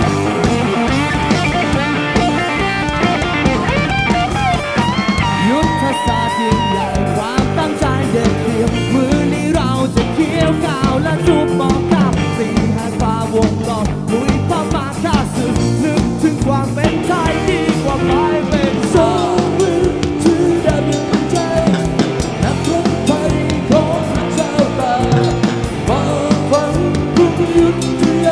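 Live rock band playing loud and without a break: a drum kit driving the beat, with electric guitar and a sung melody over it.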